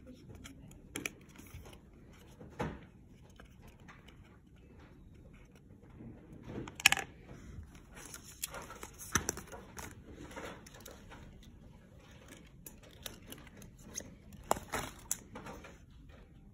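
Scattered light taps, clicks and rustles of small paperboard pen boxes and metal eyeliner pens being handled and set down on a countertop, with one sharper click about seven seconds in.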